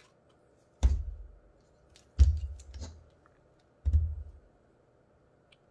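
Dull handling thumps with small clicks as a heavy assembled LiFePO4 battery pack is turned over by hand and knocked against the work mat: three thumps, each dying away within about half a second.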